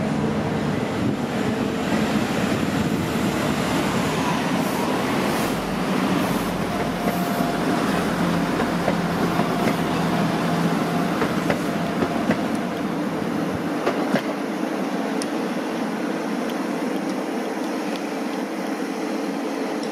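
Class 175 Coradia diesel multiple unit, with Cummins diesel engines under the cars, running past with a steady engine rumble. Its wheels click over rail joints and points every so often, and a faint thin whine comes in for a few seconds midway.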